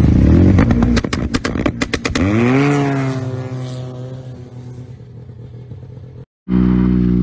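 Turbocharged three-cylinder four-stroke engine of a 2013 Arctic Cat XF1100 Turbo snowmobile running hard, then crackling with a rapid string of sharp pops from its anti-lag system about a second in. It then drops back and settles to a steady, quieter idle that fades. Near the end a loud, steady engine sound starts again.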